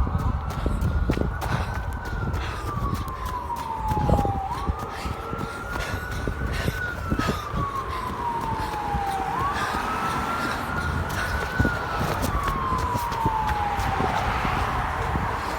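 Fire apparatus siren on the slow wail while responding to a call: each cycle climbs quickly at first, then more slowly, to its peak, and glides back down over a couple of seconds, about three cycles in all, over a low rumble and wind noise on the microphone.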